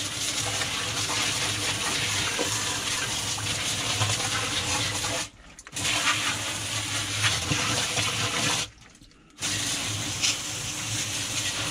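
Water rushing and splashing in a sewer ejector pump basin, with a steady low hum underneath. It cuts out abruptly twice, about five seconds in and again near nine seconds.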